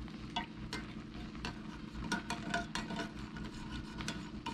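A plastic spoon stirring coffee in an enamel mug: irregular scraping and light clinks of the spoon against the mug's sides and bottom.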